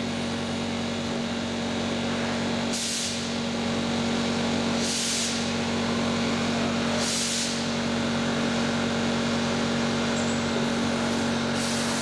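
Lathe turning a brass rod against a fixed cutting tool, running with a steady hum. Three short hisses come about two seconds apart, and another comes near the end.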